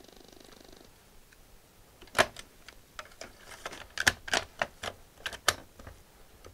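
Hard plastic clicks and clacks as a cassette is handled and the piano-key buttons of an Atari XC12 cassette recorder and the keys of an Atari 65XE are pressed: one sharp clack about two seconds in, then a quick run of clicks. A faint hum stops about a second in.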